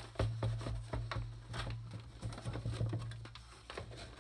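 Plastic toy housing being handled as its bottom shell is lifted off: irregular light clicks and taps, over a low steady hum.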